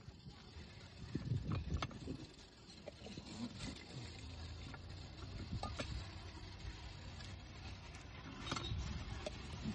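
Occasional clicks and clunks from a cast-iron lever hand juicer being worked and lime halves being handled, over a low steady rumble.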